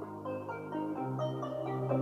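Instrumental music played through the speaker of a Lenovo 8-inch Smart Display at medium volume: short mallet-like melody notes over held bass notes that change about once a second.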